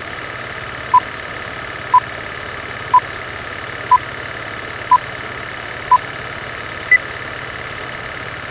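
Old film-leader countdown sound effect: a film projector running with a steady clatter and hiss, a short beep once a second six times, then one higher-pitched beep about seven seconds in.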